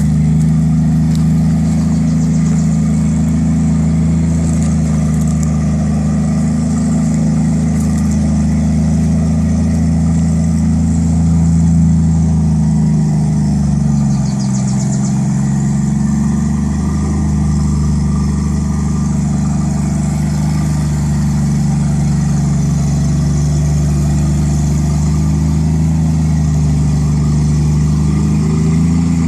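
Forklift engine running steadily at an even pitch. It dips briefly in pitch about halfway through and again near the end, as the load on it changes.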